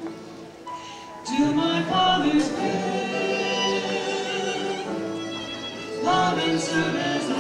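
Church music: singing with instrumental accompaniment, in long held notes. It is softer for the first second, then comes in louder about a second and a half in, and swells again near the end.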